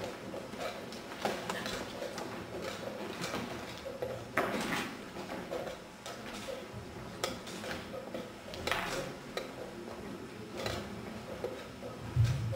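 Wooden chess pieces being set down on the board and the chess clock's buttons being pressed in a fast blitz game: a string of short sharp knocks and clicks at an uneven rhythm, with a heavier thump near the end.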